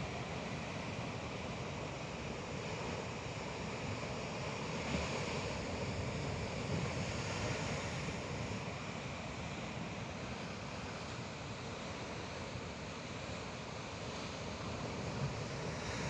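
Sea waves washing in, a steady rush of surf that swells a little partway through.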